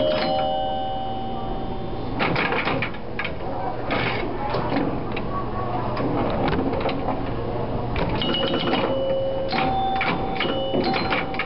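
Old electromechanical pinball machine in play: its bells ring near the start and again in the last few seconds, over a steady clatter of clicks from bumpers, relays and score reels. A low buzz runs for several seconds in the middle.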